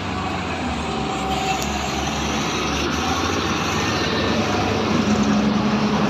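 Hyundai excavator's diesel engine running steadily, growing a little louder toward the end, with a steady hum strengthening about five seconds in.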